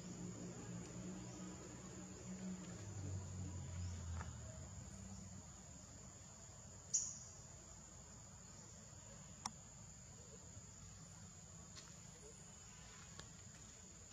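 Faint, steady high-pitched insect chorus, with a low hum that fades out after about four seconds. Two sharp clicks, the louder about halfway through and a softer one a couple of seconds later.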